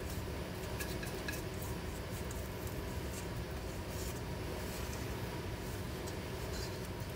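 Steady low hum with a few faint, light clicks.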